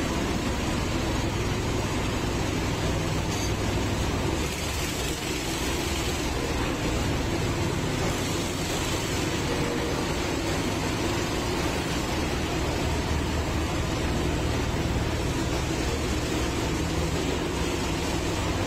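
Steady drone of heavy track-laying machinery running in a railway tunnel: a low engine hum under a constant wash of mechanical noise.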